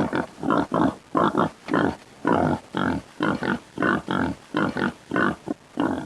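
A pig grunting over and over in short, rough grunts, about three a second, cut off suddenly at the end.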